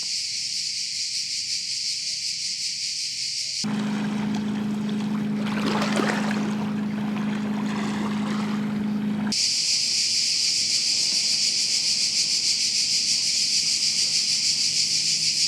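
A dense, high-pitched insect chorus with a fast pulsing rhythm. Its first stretch cuts off abruptly about three and a half seconds in, giving way to about six seconds of a steady low motor-like hum with a rushing noise. The chorus cuts back in near the ten-second mark.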